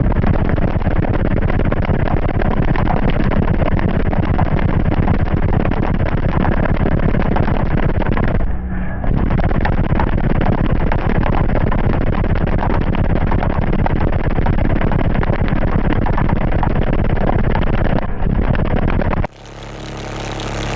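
Audioque HDC4 12-inch car subwoofer, its cone already folded and weakened, driven at high power with loud, heavy bass to destroy it. The bass breaks off briefly about halfway through and falls away sharply near the end.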